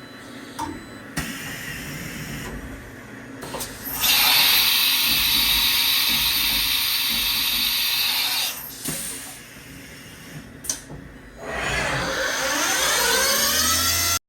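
CNC mill cutting a 6061 aluminum plate. A loud, hissing cut runs from about four seconds in to about eight and a half, then drops back to quieter machine running. Near the end a whine shifts up and down in pitch.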